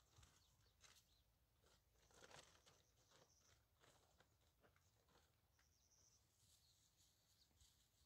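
Near silence: faint scattered clicks and a few brief high-pitched chirps.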